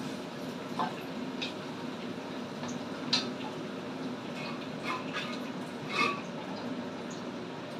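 Utensils and a metal lid knocking against a wok while vegetables are stir-fried: a scattering of light clinks and clicks, the loudest about three seconds in and about six seconds in, over a steady hum.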